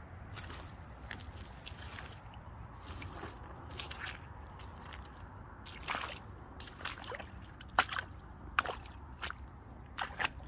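Aigle rubber boots squelching in mud. The wet squelches come irregularly, and the sharpest few fall in the second half.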